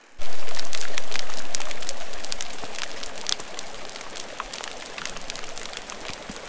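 Rain falling, a steady hiss with many sharp ticks of drops striking close by. It starts abruptly at full strength and eases off over the first few seconds.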